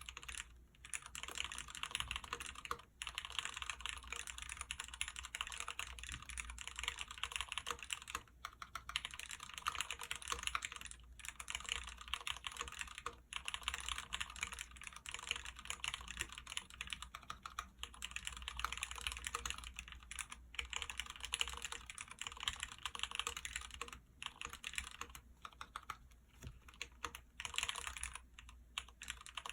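Typing on a custom mechanical keyboard, an OTD Koala replica with Cherry MX Black linear switches: a fast, continuous stream of key clacks, broken by a few brief pauses.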